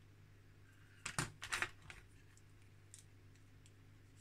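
A quick cluster of sharp clicks and taps, about a second in, as small plastic model parts and a thin hobby tool are picked up and handled, then a couple of faint ticks.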